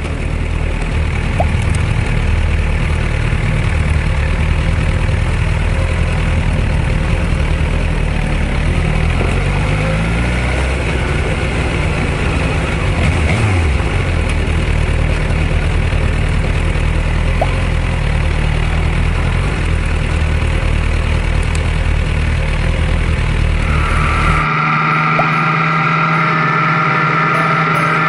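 Motorcycle engine running steadily on the move, its pitch sliding briefly up and down around ten and thirteen seconds in. About three seconds before the end the sound cuts abruptly to a different steady hum with higher tones.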